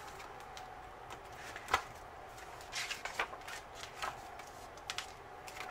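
Sticker book pages and sticker sheets being handled and leafed through: scattered short paper rustles and light taps, the sharpest about two seconds in.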